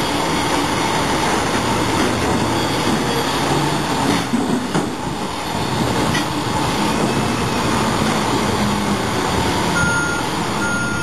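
Heavy diesel machinery running steadily as a top-loader container handler lifts an empty shipping container. Short warning beeps begin near the end.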